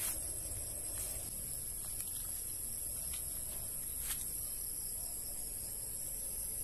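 Steady high-pitched insect chorus over a low rumble, with a few faint ticks.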